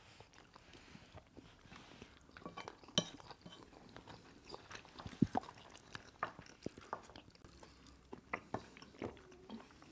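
Close-miked chewing of jollof rice, with short scattered clicks as wooden spoons scrape and tap the plates.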